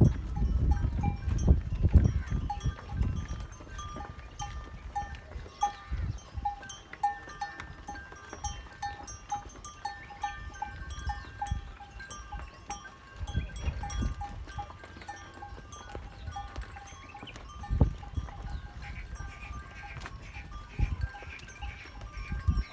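Bells on a herd of walking zebu cattle clinking over and over at an uneven rhythm, a few strikes a second. Low rumbles, loudest in the first few seconds and returning briefly later, sit underneath.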